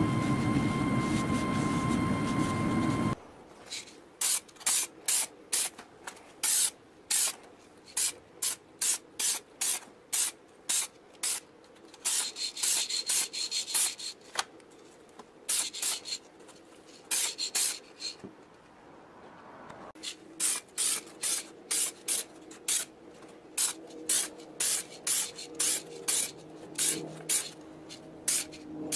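For about three seconds, a cloth is rubbed steadily by hand over the painted metal casing of an old air compressor. Then an aerosol spray-paint can hisses in dozens of short spurts, laying a coat on a compressor part, with a pause of about two seconds a little past the middle.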